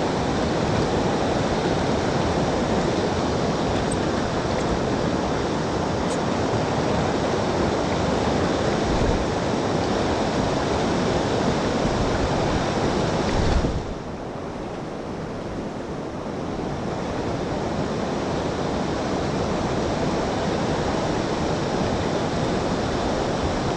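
Steady rush of river current. About fourteen seconds in there is a short knock, then the sound turns quieter and duller for a few seconds before building back up.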